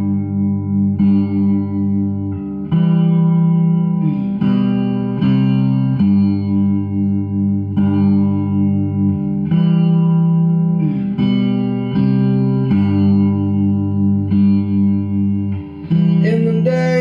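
Fender Stratocaster electric guitar playing an instrumental passage through effects pedals, layered over a looped guitar part: held low notes under a fast, evenly pulsing repeated note, with the chord changing every second or two.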